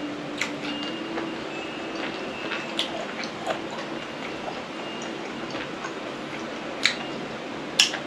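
Eating sounds: chewing and wet mouth smacks over blanched octopus, with a few sharp clicks. The two loudest come near the end. A steady low hum runs underneath.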